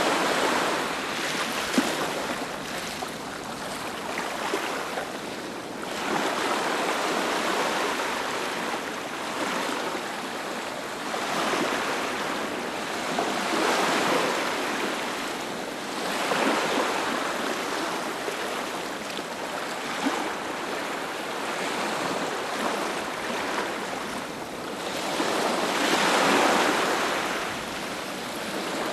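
Sea waves breaking and washing onto a beach, a continuous rush of surf that swells and fades every few seconds.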